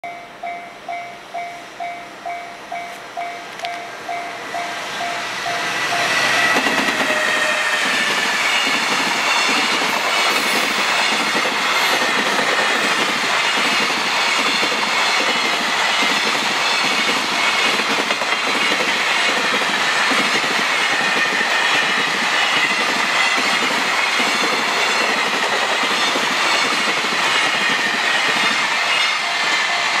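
A Japanese level-crossing bell dings about twice a second as a container freight train hauled by an EF210 electric locomotive approaches. From about six seconds in the train is passing close by, loud and steady, its wheels clattering in a regular rhythm over the rail joints and drowning out the bell.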